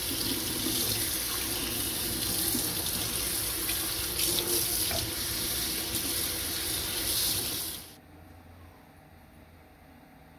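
Kitchen faucet running a steady stream onto a resin 3D print and its build plate held under it in a stainless steel sink, water splashing into the basin. The water sound cuts off suddenly about eight seconds in, leaving a faint low hum.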